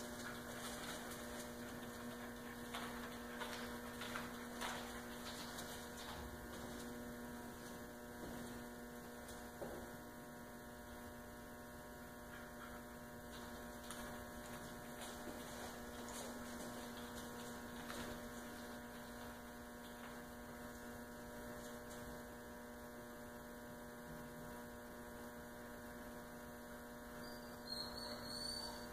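Steady electrical mains hum with a stack of even overtones, faint throughout. A few soft clicks and taps are scattered through it, and there is a brief rising high chirp near the end.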